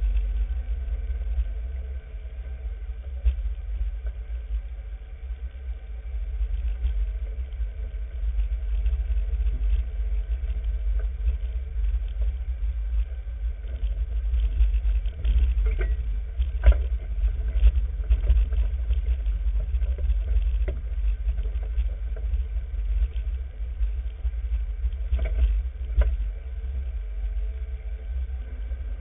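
Off-road vehicle driving along a bumpy dirt trail: its engine runs steadily under a heavy low rumble, with a couple of sharp knocks from bumps in the trail.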